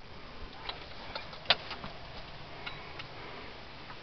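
A few faint, short clicks and knocks over a low hiss, the sharpest about a second and a half in: handling noise.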